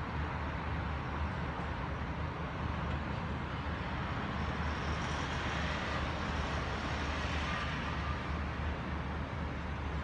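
Steady city road-traffic noise: a continuous low rumble under an even hiss, a little brighter in the middle.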